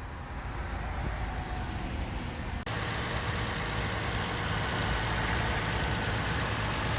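2019 Toyota Tacoma's 3.5-litre V6 idling steadily. It jumps louder at a sudden cut about three seconds in.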